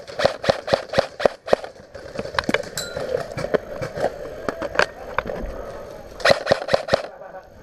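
Airsoft gunfire: a rapid string of sharp clacks at several a second, then scattered single shots, then a second quick burst a little after six seconds.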